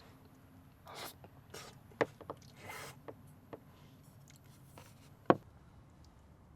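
Objects being handled: a few sharp knocks and clicks, the loudest about two seconds in and again near the end, between short bursts of scraping and rustling.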